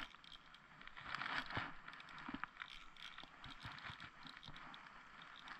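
Faint rustling and scraping of clothing and gear being handled at the edge of an ice hole, with a few soft clicks and knocks in the middle stretch.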